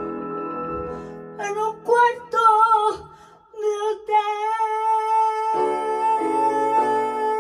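Female voice singing a slow blues over digital piano. A piano chord rings alone at first, then she sings short phrases with vibrato, and from about four seconds in holds one long note while the piano chords come back in under it.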